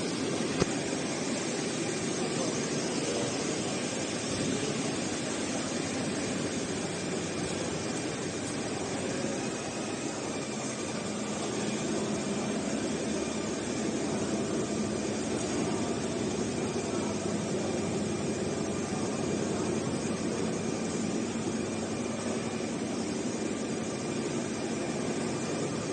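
Running industrial machinery: a steady whooshing hum with a few faint steady tones, no distinct stitch rhythm.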